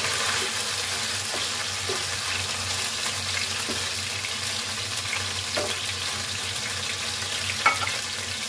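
Diced chicken breast sizzling steadily in hot oil in a nonstick wok, with a few light scrapes and taps of a wooden spatula stirring it. A sharper knock comes about three-quarters of the way through.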